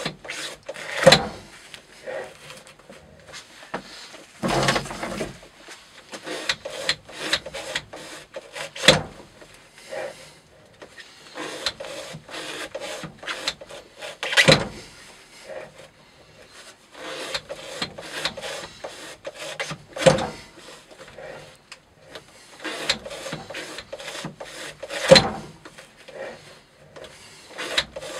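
Spyderco Para Military 2 with a Maxamet steel blade repeatedly slicing thick natural-fibre rope on a weighted cutting-test rig: a dry crackle of fibres parting under the blade, with a louder sharp crack about every five or six seconds. It is a rope-cutting edge-retention test, past cut 500.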